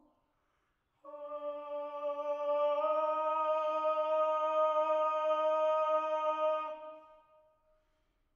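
Mezzo-soprano and bass singing a cappella: after a moment's silence, one long sustained note held together, stepping slightly up in pitch about three seconds in, then fading away near the end.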